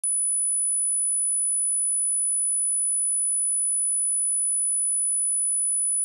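Electronically generated pure sine tone at 9945 Hz, a single steady high-pitched whistle that switches on right at the start. It is a speaker test tone, also used to shake water and dust out of a speaker.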